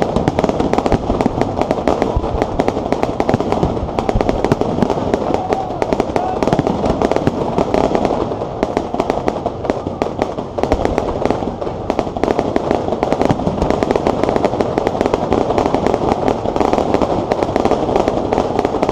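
Fireworks going off in rapid, continuous succession: dense crackling and popping throughout.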